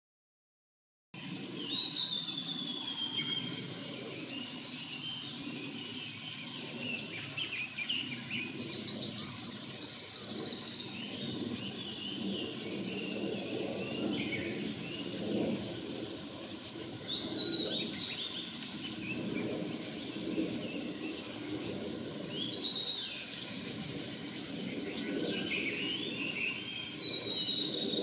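Male blue-and-white flycatcher singing: about five phrases some five to seven seconds apart, each opening with a clear whistle that falls slightly in pitch and running on into a quick jumble of short notes.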